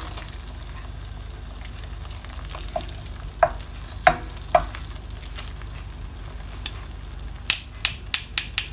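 Spoon stirring thick, cooked-down raw mango chutney in a stainless steel pan, over a faint steady sizzle of the mixture, whose water has cooked off. The spoon knocks against the pan a few times, then in a quick run of taps near the end.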